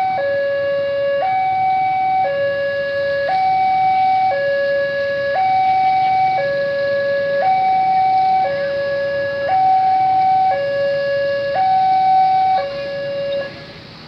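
Two-tone hi-lo siren, switching steadily between a lower and a higher pitch about once a second at an even loudness, then cutting off suddenly about thirteen seconds in.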